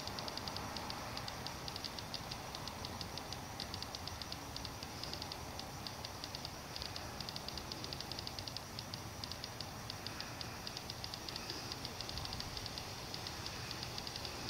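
Insects chirping at night: a steady run of rapid, high-pitched pulses with a few short breaks, over a faint hiss.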